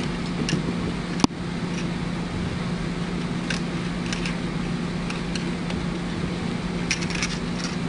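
Steady mechanical hum with a few light clicks and taps of small parts being handled during a syringe pump reassembly, with one sharp click about a second in and a small cluster of clicks near the end.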